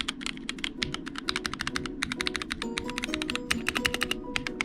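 Fast typing on a Womier K66 60% mechanical keyboard with silent red linear switches: a rapid stream of short, soft key clicks, over background music with held notes.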